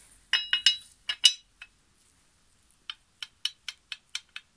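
Metal clinks as a steel mower blade is set onto a cone-type blade balancer: a quick cluster of sharp clinks in the first second and a half, then a run of light, evenly spaced ticks, about four a second, near the end.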